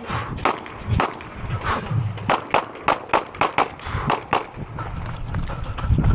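Glock 19 9mm pistol fired in quick strings: more than a dozen sharp shots, many about a quarter second apart, with a short lull around five seconds in.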